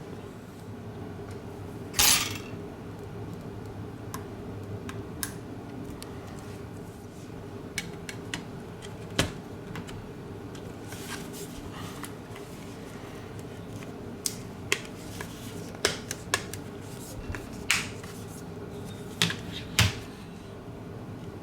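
Scattered small clicks and taps of hand tools and parts during smartphone reassembly, with a short scraping rasp about two seconds in and a run of sharp clicks in the last third, over a steady low hum.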